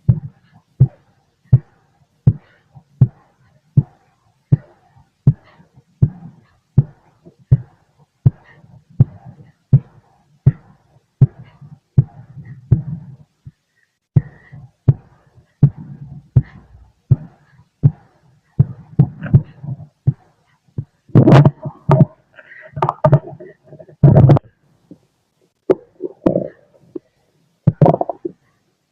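Human heartbeat heard through a stethoscope: regular low thumps at about 80 beats a minute. From about 20 seconds in it gives way to louder, irregular rumbles and knocks.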